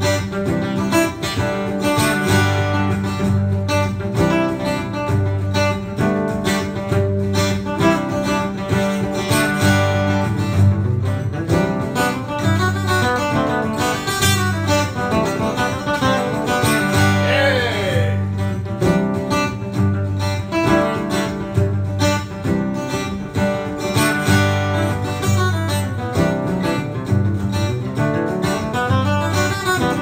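Background music: a guitar piece with plucked strings.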